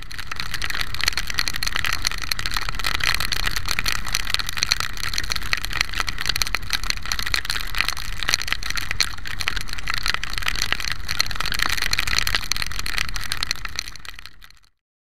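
Rain and wind on a motorcycle-mounted camera while riding through a downpour: a steady rushing hiss crackling with drops hitting the camera, over the engine's low running. It fades out near the end.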